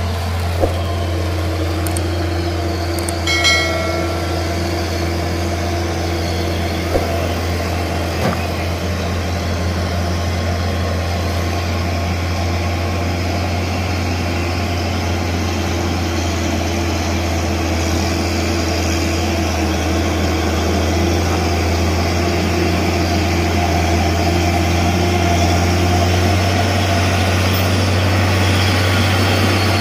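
Diesel engine of a loaded Hino dump truck working slowly uphill, a steady low drone that grows a little louder in the second half.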